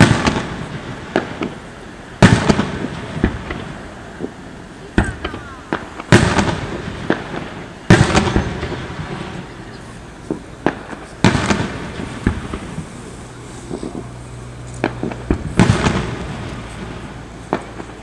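Aerial fireworks exploding in a rapid series of sharp bangs, each followed by a fading crackle and echo.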